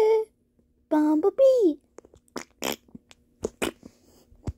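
A child's voice finishes a held sung note, then calls "Bumblebee!" with a falling pitch, followed by a few short soft clicks.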